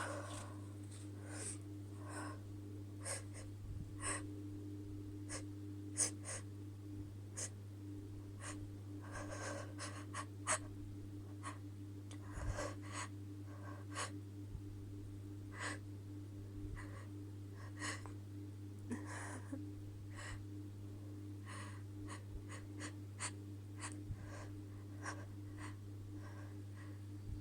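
A woman's quick sniffs and short catching breaths, scattered irregularly, as a tickle in her nose builds toward a sneeze. Under them runs a steady low hum.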